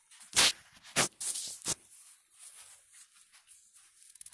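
Two loud knocks about half a second apart, then a short spell of crisp rustling and faint small clicks as fried oysters are handled and set onto the sandwich.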